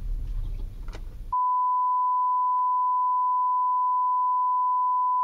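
Low in-car road rumble for about a second, then a single steady high beep tone that abruptly replaces all other sound for about four seconds and cuts off sharply. It is an edited-in bleep blanking the soundtrack.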